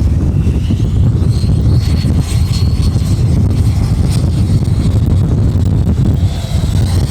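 Electric ducted fan of an RC model jet (WeMoTec Midi Evo 80 mm fan on a 2300 kV inrunner motor) making a thin high whine that comes in about a second in, fades, and returns near the end. Heavy wind rumble on the microphone lies under it and is the loudest sound.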